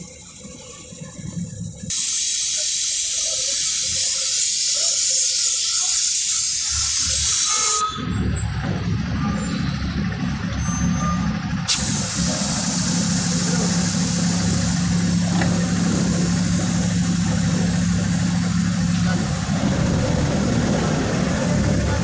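Truck cab noise: a diesel engine running at low speed, with a loud steady hiss that comes in suddenly about two seconds in. From about eight seconds the engine's low rumble is heavier, with a steady hum for several seconds.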